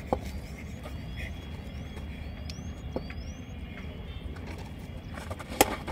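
Steady low outdoor rumble with faint high rising chirps, then one sharp crack about five and a half seconds in: a cricket bat striking the ball.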